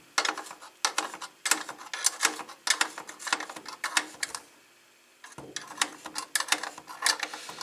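A hand wrench tightening the bolt of a drum lug bracket, making quick runs of metallic clicks, with a pause of about a second a little past the middle.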